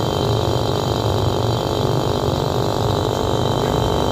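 R600 refrigerator compressor (1/4 size) running with an abnormally loud, steady hum. When the shell is later cut open, a spring of the internal pump suspension is found knocked to the side with its plastic seat come out.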